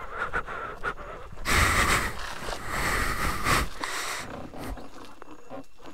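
A person's breathing close on the microphone, two heavy breaths a little over a second apart.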